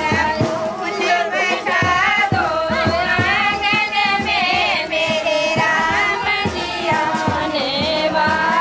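Music: a song with singing voices over a steady drum beat.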